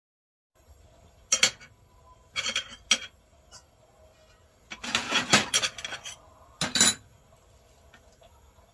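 Metal spoon and steel dishes clinking and clattering in short bursts, with a longer run of clatter about halfway through.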